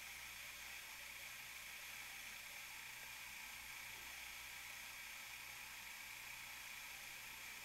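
Faint steady hiss with a low hum underneath: quiet room tone and recording noise.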